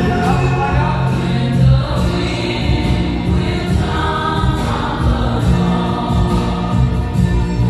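Loud dance music played over the party's sound system, with a heavy bass line and sung vocals.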